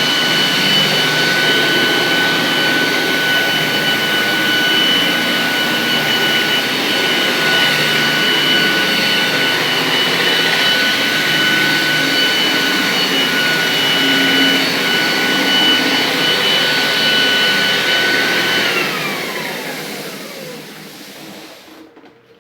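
Walita/Philips HL3633 floor buffer-vacuum cleaner running with a steady high whine over a rushing air noise. About 18 seconds in it is switched off, and the whine falls in pitch and fades as the motor and fan wind down.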